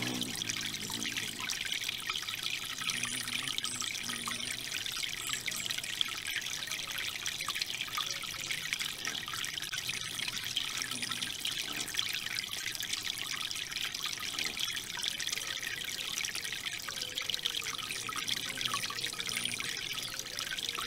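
Three-tier garden fountain running, water trickling and splashing steadily from the tiers into the basin.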